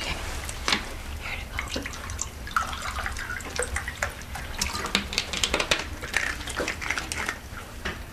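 Water poured from a plastic water bottle into a drinking glass, trickling and splashing, with many small clicks and crackles from the bottle and glass.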